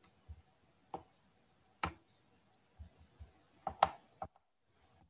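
Scattered clicks of a computer mouse, about half a dozen sharp single clicks with the loudest near four seconds in, as an on-screen eraser tool is used.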